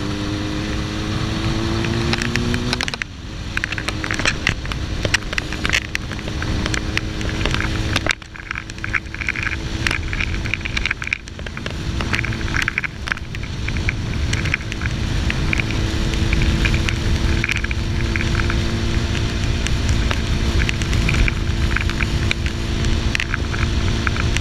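Suzuki GSX-R1000 inline-four engine running under way: the revs climb, drop sharply about three seconds in, then hold fairly steady at cruise. Crackling wind and handling noise on the microphone lies over it throughout.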